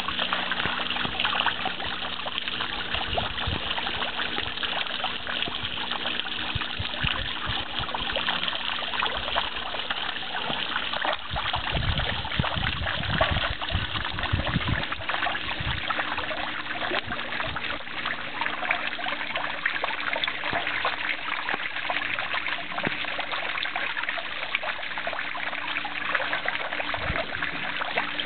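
Running water trickling steadily, with a brief low rumble about twelve to fifteen seconds in.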